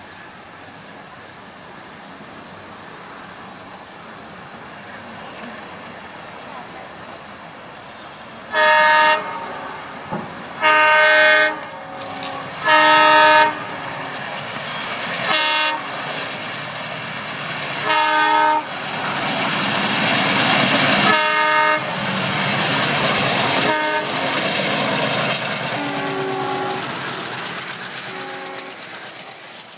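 Indian Railways ALCo diesel locomotive hauling a passenger express: a steady engine rumble, then a series of loud multi-tone horn blasts, three long ones followed by several shorter ones. Past the middle the train draws level and the coaches rush past with wheels clattering over the rail joints.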